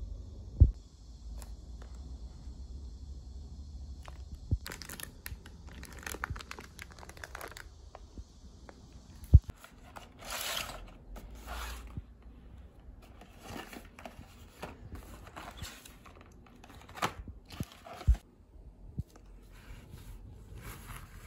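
Packaging and objects being handled by hand: cardboard boxes and wrapping rustled, scraped and moved about in short irregular bursts, with three sharp knocks as things are set down or bumped.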